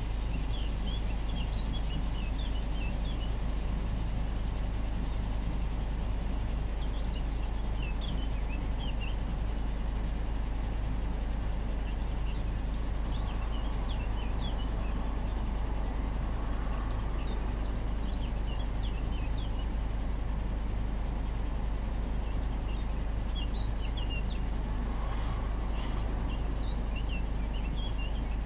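Steady low rumble of the heavy camper van's engine, with a small songbird singing short chirping phrases every few seconds.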